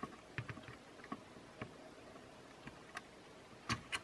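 Faint, scattered clicks and taps of small plastic and circuit-board parts being handled and pressed into a DJI Mavic Air 2 drone's body by hand, with a few quick clicks together near the end.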